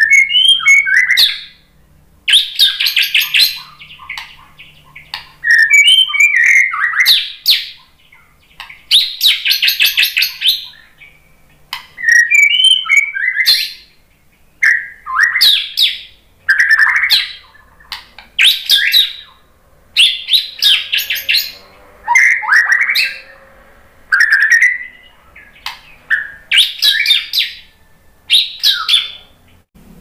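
White-rumped shama (murai batu) singing: a run of varied whistled phrases, each about a second long with short pauses between, several of them fast rattling trills.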